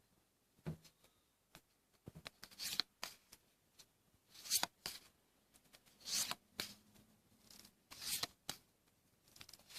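Pokémon trading cards being handled and flipped through, a string of short papery swishes and snaps a second or two apart.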